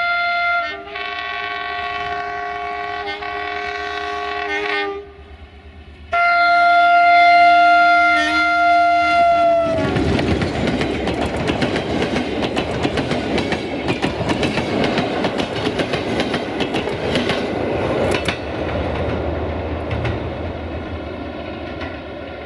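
GM diesel locomotive 64-1363-2 sounding its horn in long chords: the chord changes about a second in, and after a short break a last blast sags in pitch as it stops. The passenger train then rushes past close by, its wheels clacking sharply over the rail joints, and the noise slowly fades as it goes.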